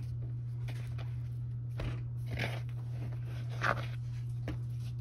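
Hand patting and pressing dry seasoned flour onto a raw catfish fillet, giving a few short, soft crunches about two, two and a half, three and a half and four and a half seconds in, over a steady low hum.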